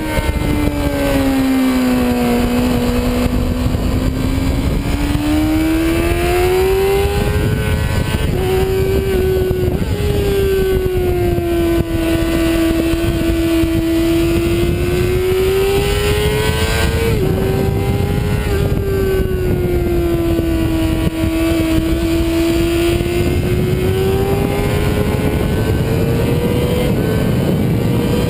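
Sportbike engine at racing speed, heard from onboard: its note falls and rises as the bike brakes and accelerates through corners, dropping suddenly twice as the rider shifts, under a steady rush of wind.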